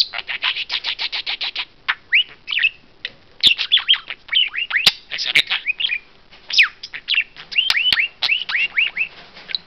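Budgerigar chattering and warbling nonstop: a fast run of short chirps, then many quick falling whistles and twittering notes, with a few sharp clicks mixed in.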